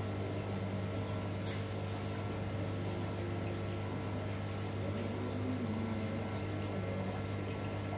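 Steady low electric hum with a faint watery hiss, the background of running aquarium equipment.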